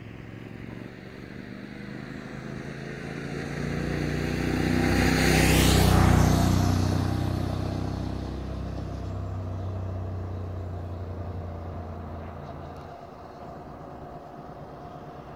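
A motor vehicle drives past close by on the road, its engine and tyre noise building to a peak about six seconds in, dropping in pitch as it passes, then fading away.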